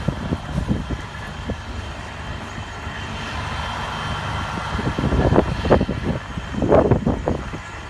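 Low steady rumble of an idling diesel semi-truck with wind noise, swelling in gusts about five and seven seconds in.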